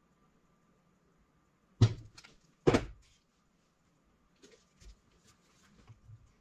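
Two sharp knocks about a second apart as the turbocharger's center housing is handled and set down on a plastic parts tray, followed by light, scattered clicks of small metal parts.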